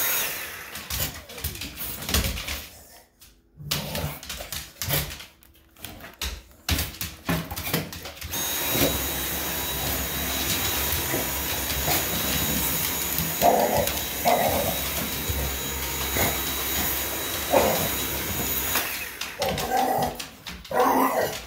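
A English bulldog barking at a Dyson cordless stick vacuum and mouthing its floor head, which knocks on the hardwood floor. About a third of the way in the vacuum's motor starts with a steady high whine. It stops shortly before the end.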